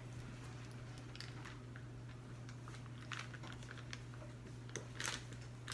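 Faint scattered clicks and taps over a steady low hum in a small room, with a few louder clicks near the end.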